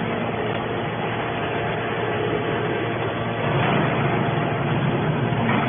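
Hydraulic can baler running, its power unit giving a steady mechanical drone that swells a little about halfway through.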